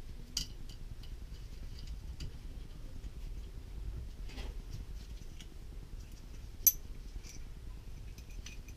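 Small metal engine valve parts being handled by gloved hands: faint clinks and taps, with one sharp click a little under seven seconds in.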